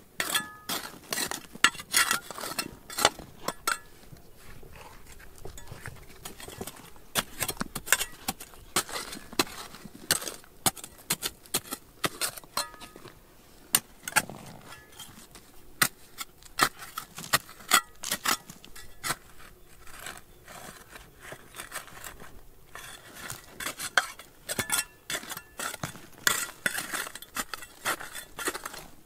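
Hard metal objects clinking and knocking together in many sharp, irregular strikes, a few of them ringing briefly.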